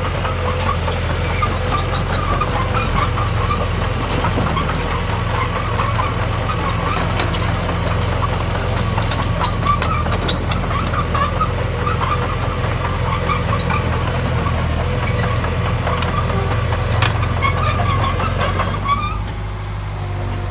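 Komatsu D21P bulldozer's diesel engine running steadily, with scattered sharp metallic clicks over it. Near the end the engine note drops and quietens slightly.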